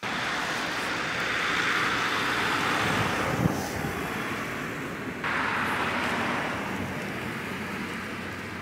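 Road traffic: cars passing on an adjacent road, a steady tyre hiss that swells and eases. It jumps up suddenly about five seconds in, then slowly fades.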